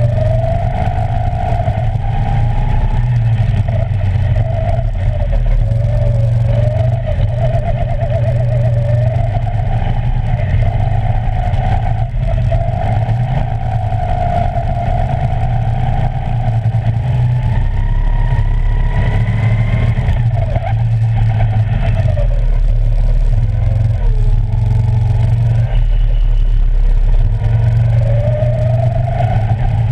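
Go-kart motor heard onboard under hard driving, its pitch climbing on the straights and falling into the corners over and over, above a constant heavy low rumble.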